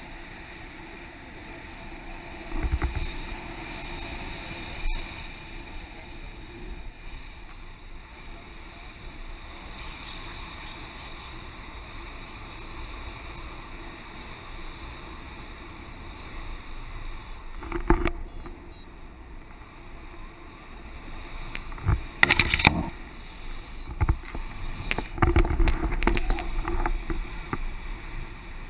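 Wind rushing over an action camera's microphone in paraglider flight: a steady rumbling airflow with louder buffeting gusts about three seconds in, around the middle, and several near the end.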